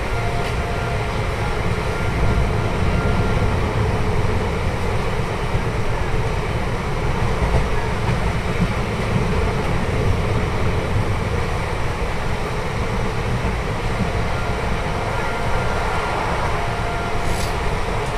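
An Indian Railways passenger express coach running along the track, a steady rumble of wheels on rails with air rushing past, heard from the open side of the coach. A faint high tone comes and goes in the background.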